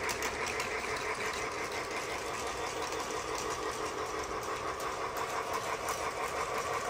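Battery-powered toy train running steadily around its track: a small electric motor whirring, with a rapid, even clatter from the wheels and gears.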